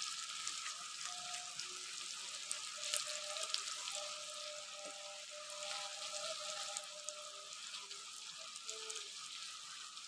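Coated okra deep-frying in hot ghee: a steady sizzling hiss full of small crackles and pops as more pieces are added to the oil.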